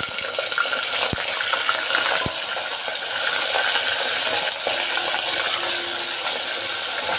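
Raw mutton pieces sizzling steadily in hot oil in a pressure cooker as they are added, with two light clicks about one and two seconds in.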